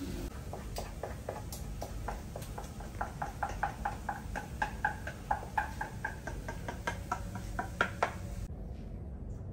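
A spoon scraping and knocking around the inside of a small saucepan as cooked cream of rice is scraped out into a bowl. The short, ringing scrapes repeat about four times a second and stop about eight seconds in.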